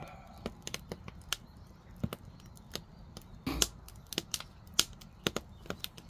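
Firewood burning in an ondol firebox, crackling with irregular sharp pops and snaps, and a duller knock about halfway through.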